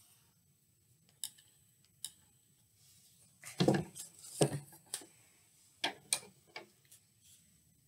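Scattered light knocks and taps of a cardboard tube and small craft items being picked up, handled and set down on a wooden table. There are single taps about one and two seconds in, a quick cluster of louder ones around the middle, and a few more near the end.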